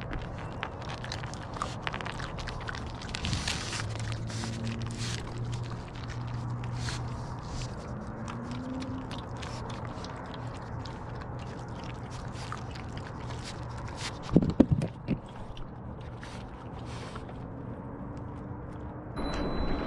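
Raccoons crunching peanuts and seed close to the microphone, with many small sharp cracks and scrapes over a steady low hum. About fourteen and a half seconds in come a few loud knocks as a raccoon bumps the light or camera.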